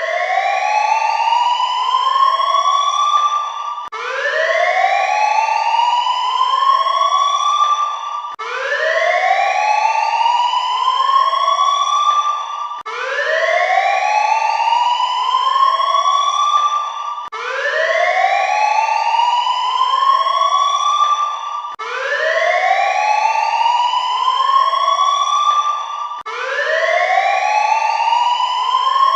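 Alert siren sounding a repeated rising wail, about once every four and a half seconds, each wail made of a few overlapping upward sweeps.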